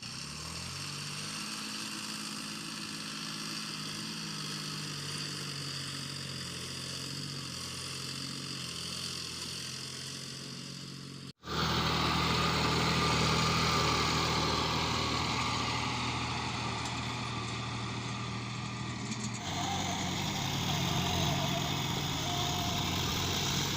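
John Deere tractor's diesel engine running steadily. The sound cuts off abruptly about eleven seconds in and resumes louder, then changes again a few seconds before the end.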